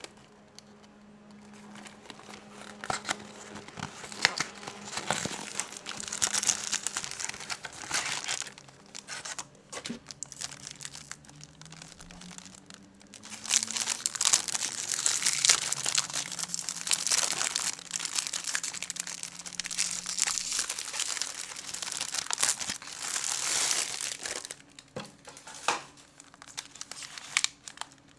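Packaging of chocolate-covered biscuits being opened: crinkling and tearing of the wrapper and box, and handling of the clear plastic tray. The rustling comes in two long stretches with a short lull between them, and a few sharp clicks come near the end.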